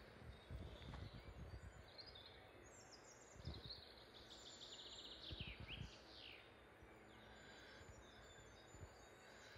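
Faint forest birdsong: several birds sing with short whistled notes, some sliding downward, and a fast trill about four to six seconds in. A few low thumps sound underneath.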